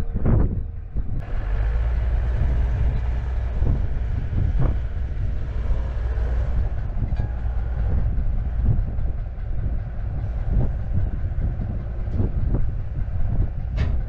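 Skid steer's diesel engine running with a steady rumble that picks up about a second in, with scattered metal clanks and knocks every second or two.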